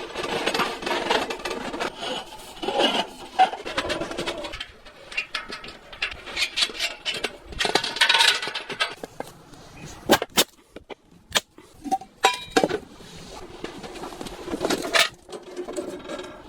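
Irregular knocks, clicks and scraping with rustling in between: things being handled and set down.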